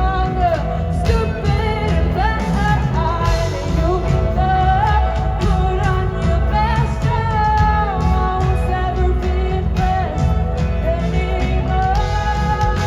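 Live rock band playing loud and steady: drums, electric bass and electric guitar, with a sliding lead melody on top.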